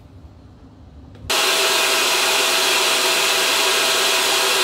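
Countertop blender switched on about a second in, starting suddenly and then running steadily at full speed, grinding a dry mix of grain and flakes into powder.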